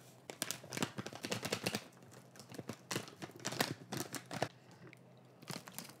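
Foil-lined hot chocolate packet crinkling and rustling as the powder is poured and shaken out into a mug, in quick irregular crackles that come in a few clusters with short pauses between.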